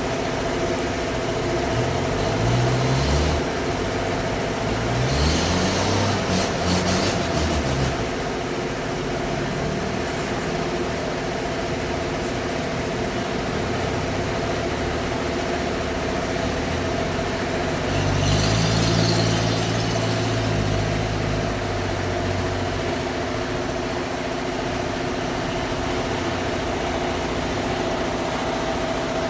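Sawmill machinery running with a steady hum, while an engine revs up and down in short bursts about two, five and eighteen seconds in.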